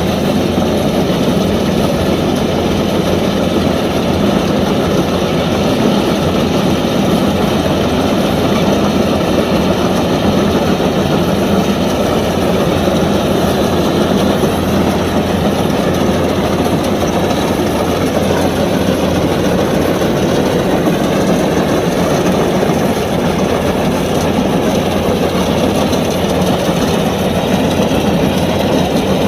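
Kubota DC-105X combine harvester running steadily under load while harvesting rice, its diesel engine's even drone mixed with the rattle of the threshing and cutting machinery.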